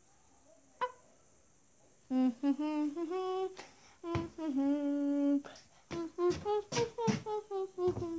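A person humming a wordless tune in held notes, starting about two seconds in. Before that it is nearly quiet except for one short tone about a second in.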